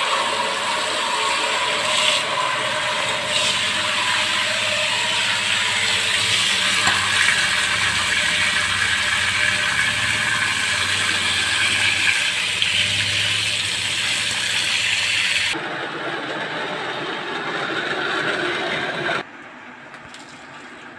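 Water rushing hard out of the drain of a jetmatic pump's pressure tank, with a rattling, sputtering texture. The rush changes about fifteen seconds in and cuts off sharply a few seconds later.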